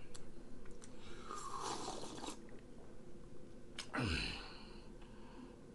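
Mouth and breath noises of a man drinking from a glass mug: a noisy breath lasting about a second, a little over a second in, then a short sip with a sharply falling pitch about four seconds in.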